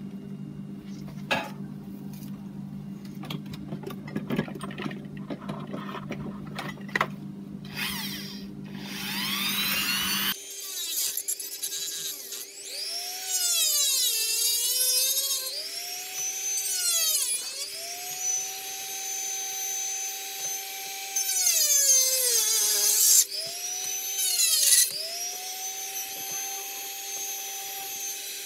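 A Dremel rotary tool fitted with a diamond cutter spins up about nine seconds in, after some handling clicks, and then cuts into the plastic of a Nerf flywheel cage. Its whine repeatedly drops in pitch as the bit bites into the plastic and climbs back as it eases off. The cutting is played back at double speed.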